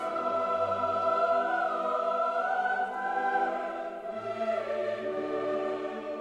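Background music: a choir singing long held chords over an orchestra, the chord changing every second or two.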